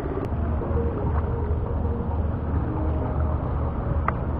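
A boat engine running steadily with a continuous low rumble.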